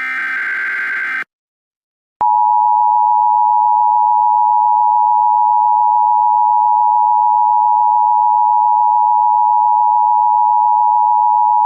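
Emergency Alert System tones. The last burst of the SAME digital header is a harsh data screech that ends about a second in. After a short gap, the EAS attention signal starts about two seconds in: two steady tones of 853 and 960 Hz sounded together, loud and unbroken, which announce that an emergency message follows.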